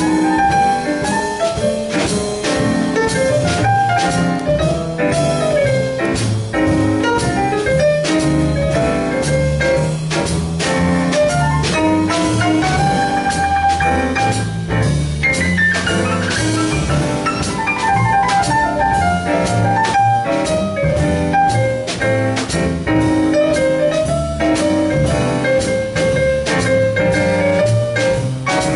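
Jazz piano trio playing an instrumental passage: a Yamaha CP stage piano takes the lead with melodic runs over upright bass and drum kit.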